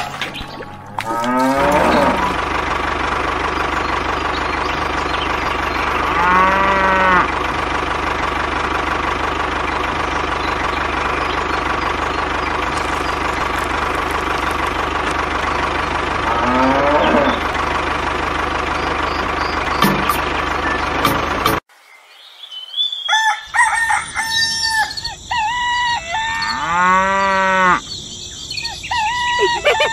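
Cattle mooing several times, long calls that rise and fall, over a steady motor drone. The drone cuts off suddenly about two-thirds of the way through. After that, farm-animal calls follow: chicken and rooster sounds and another long moo.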